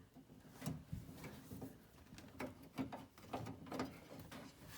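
Faint, scattered clicks and light scrapes of small metal parts being handled as a door-handle linkage pin is slid into its mount inside a car door.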